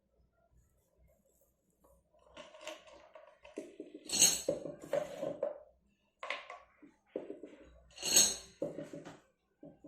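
Small metal tools and parts clinking and clattering as they are handled on a work surface, in irregular bursts with the sharpest clinks about four and eight seconds in.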